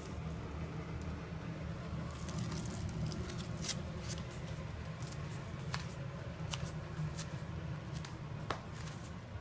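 A ferret scampering on a wooden floor: light rustling about two seconds in, then a handful of separate sharp clicks and taps as it moves about, over a steady low hum.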